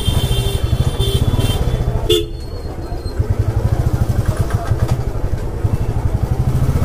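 Motorcycle engine chugging at low speed with a steady, rapid low pulse. Over it come high-pitched horn honks: one held for about the first second and a half, and a short toot about two seconds in.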